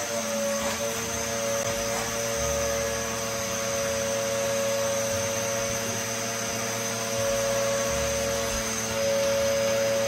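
Upright vacuum cleaner running steadily, a constant motor whine, as its hose wand is worked over sofa upholstery.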